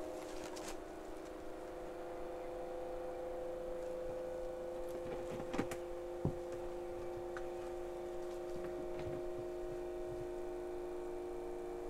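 Small electric water pump running with a steady hum, pushing water up a hose toward a tank about 3.5 m above; no water has reached the tank yet. Two short knocks a little past the middle.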